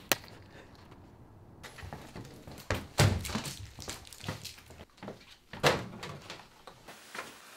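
A single sharp slap, then a run of separate thuds and knocks as small flags are pressed onto kitchen cabinet doors and a microwave door; the loudest thud comes about three seconds in.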